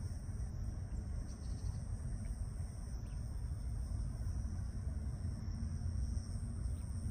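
Insects shrilling in a steady high chorus that breaks off briefly every two to three seconds, over a steady low rumble.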